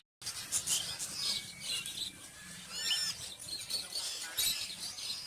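Cockatiel chicks chirping and calling in short high notes, with a bunched run of calls about three seconds in. The sound cuts out completely for a moment at the very start.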